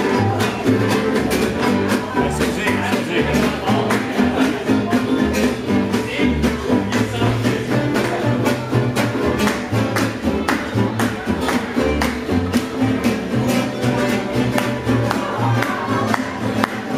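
Live swing jazz played on acoustic guitars, with a steady strummed beat and a low moving bass line underneath.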